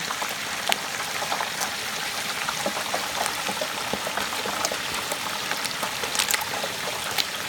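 Hot oil in a propane turkey fryer bubbling with a steady hiss as a whole turkey is lowered into it, broken by many sharp pops and crackles of spattering oil.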